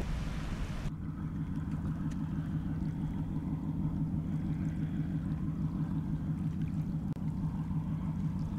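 Steady low throb of a small cargo ship's diesel engine as the ship passes along the river.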